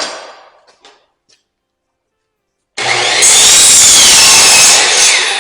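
A power saw cutting through a 2x4. It starts suddenly, runs loud and steady with a whine that dips and rises as the blade goes through the wood, then starts winding down near the end. A short knock and clatter of wood fades out in the first second.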